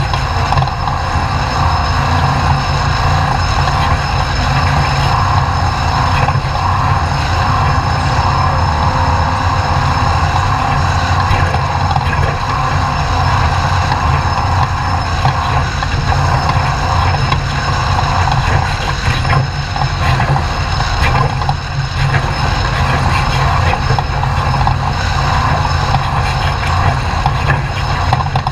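Class 2000 off-road race truck's engine running steadily, a loud constant drone.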